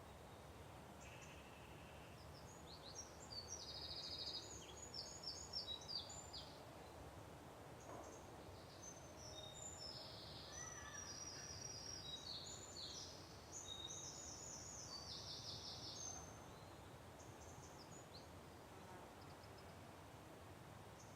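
Songbirds singing faintly: quick repeated high chirps and short trills, busiest from about four to sixteen seconds in, over a faint steady hiss.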